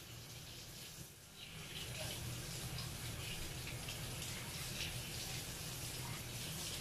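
Kitchen faucet running into the sink while a fish is rinsed by hand under the stream. The water dips briefly about a second in, then runs louder and steady.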